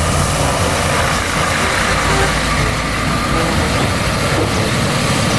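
Volvo FH truck and trailer driving past: a steady heavy diesel engine with tyre and road noise.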